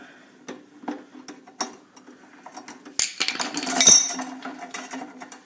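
Metal hand tools and hardware clinking against each other: scattered light clicks, then a louder metallic clatter about three seconds in that rings briefly.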